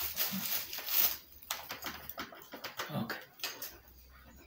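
Irregular metal clicks and knocks of a spanner working the bolts of a grass cutter's handle clamp, with a couple of dull thuds on the wooden table.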